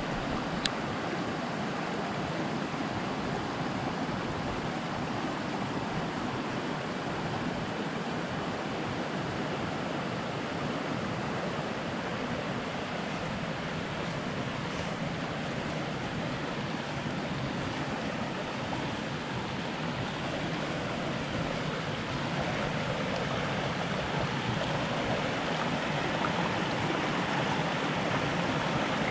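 Small mountain creek flowing over rocks and fallen logs, a steady rushing of water that grows slightly louder near the end, with a single brief click under a second in.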